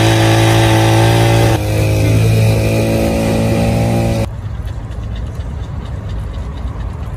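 Handheld petrol hedge trimmer's small engine running at a steady high speed, then cut off abruptly about four seconds in, leaving a quieter background hiss.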